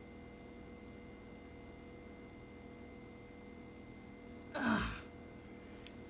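Quiet room tone with a faint steady hum. About four and a half seconds in, a person gives one short voiced sigh that falls in pitch. A faint click comes near the end.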